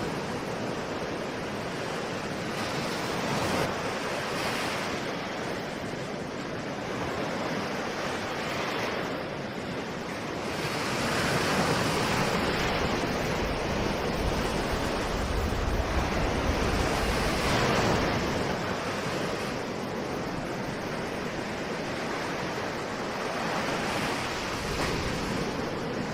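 Ocean surf: waves breaking and washing in as a steady rushing noise that swells and eases slowly, loudest for several seconds near the middle.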